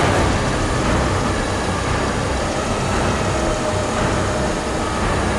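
Heavy diesel recovery equipment (a heavy wrecker's winch and excavators) running hard under load while pulling a bogged-down 70-ton excavator from mud: a loud, dense, steady rumble.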